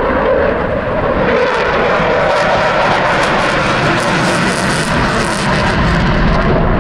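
Eurofighter Typhoon's twin EJ200 jet engines, loud, in a high-speed low flyby. The pitch drops as the jet passes at the start, then a harsh rumble with a hissing edge swells through the middle and eases slightly near the end.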